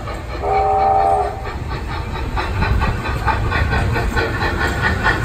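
Kiddie carnival train ride: a short train-whistle blast sounds about half a second in, one steady chord lasting under a second. Then a rapid, even clicking of about four to five clicks a second runs over a low rumble of the ride in motion.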